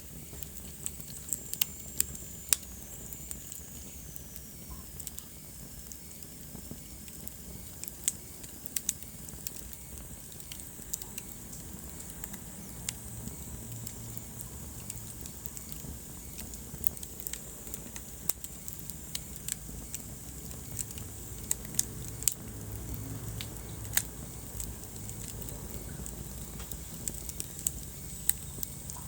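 Wood fire burning in a fireplace: a steady low rumble of flames with irregular sharp crackles and pops from the burning logs. A faint high whistle falls in pitch near the start.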